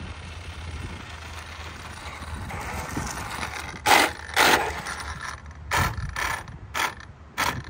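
Arrma Limitless RC car, with its brushless motor on a Hobbywing Max4 ESC, driving up with a building drivetrain whine and passing close by about four seconds in. It then moves away in about four short bursts of motor and gear noise, spaced roughly half a second apart.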